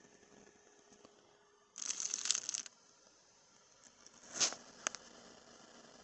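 Paper rustling as a printed user manual is handled: a crinkly rustle lasting nearly a second about two seconds in, then a shorter, sharper rustle and a light tap around four and a half seconds in.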